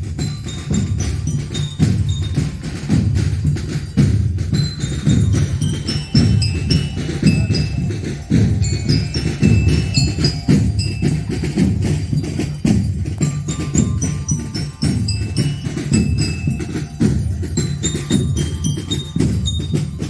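A marching band's bell lyres play a quick, high melody of short ringing notes over a steady beat of bass drums and snare strikes.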